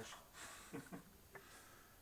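Near silence: room tone with a few faint short clicks and rustles in the first second and a half.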